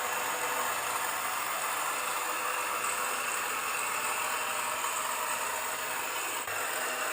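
Small electric motors and plastic gearboxes of radio-controlled construction models running with a steady whir and rattle, with a brief break about six and a half seconds in.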